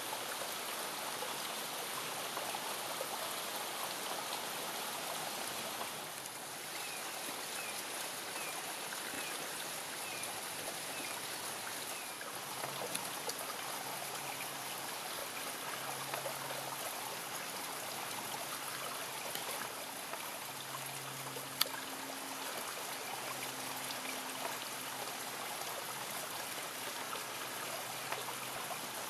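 Heavy rain pouring steadily on leafy trees, an even hiss of falling water. A faint run of short chirps comes about a quarter of the way in, and a single sharp click about three-quarters of the way through.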